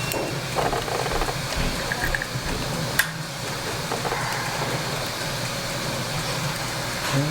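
Steady low background hum with faint small handling sounds and one sharp click about three seconds in.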